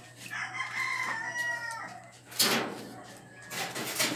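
A rooster crowing once, one drawn-out call of about a second and a half, followed by a brief louder noise.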